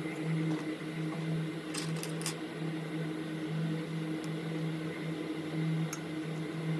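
Steady hum of a small electric motor, with a few faint light clicks about two seconds in and again near the end.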